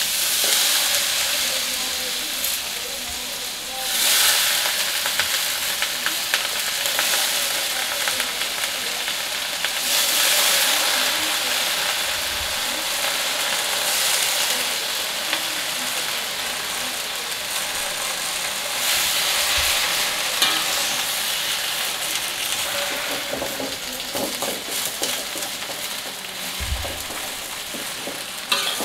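Water spinach (kangkung) sizzling in hot oil in a wok as it is tipped in and stir-fried, with a metal spatula scraping and clicking against the wok. The sizzle starts suddenly and flares up several times, at about four, ten and nineteen seconds in.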